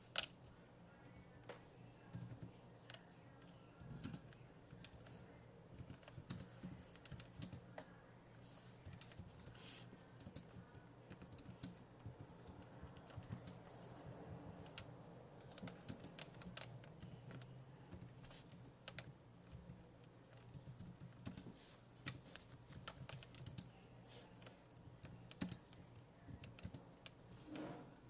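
Typing on a computer keyboard: quiet, irregular key clicks throughout, with one sharper click right at the start.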